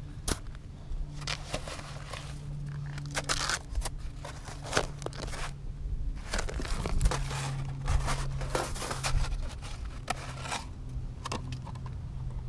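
Divider panels being handled and set upright in crusty snow: an irregular run of short scrapes, clicks and knocks as the panels rub and tap against each other and the stand, with snow crunching under hand and knee.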